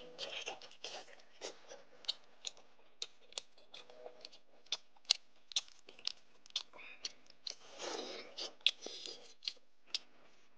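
Close-miked chewing of sauced meat pulled off the bone: wet mouth clicks and smacks several times a second, with longer, noisier stretches near the start and again about eight seconds in.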